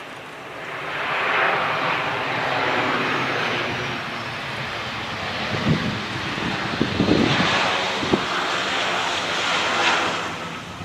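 Boeing 737 airliner's jet engines on landing, a steady rushing noise that swells, eases and swells again before fading near the end. Gusts of strong wind buffet the microphone with low thumps in the middle.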